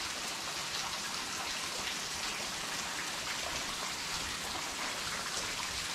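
Steady hiss of falling water, like rain, with scattered faint drop ticks.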